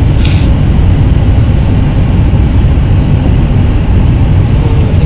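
Steady low rumble of a car driving on a snowy road, heard from inside the cabin, with a short hiss at the very start.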